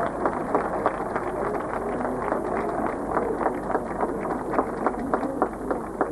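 Scattered hand clapping from a crowd, irregular claps several a second, over a low murmur of crowd chatter.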